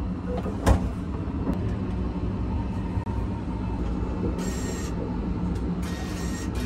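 Steady low rumble of the moving sleeper train heard from inside its shower room. A sharp clack of the door lock comes about a second in. Later, the shower card reader's motor whirs twice briefly as it draws the shower card in.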